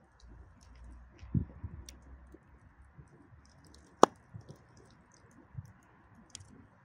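Wood fire crackling in a grill box under a covered pot: scattered small ticks and pops, a dull low thump a little over a second in, and one sharp loud crack about four seconds in.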